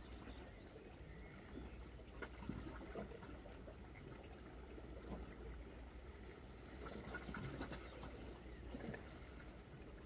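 Calm sea lapping gently against a rocky shore, with small irregular splashes and trickles over a steady low rumble.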